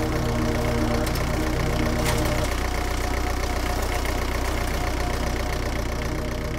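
An engine running steadily at an even idle, with a fast, regular knocking pulse.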